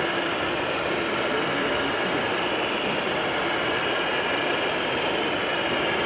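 Steady running noise of radio-controlled model trucks and construction machines, an even din with faint high motor whine and no sudden events.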